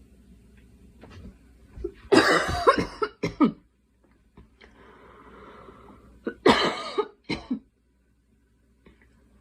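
A girl coughing in two fits about four seconds apart. Each fit is one long cough followed by two short ones, with a faint breath between the fits.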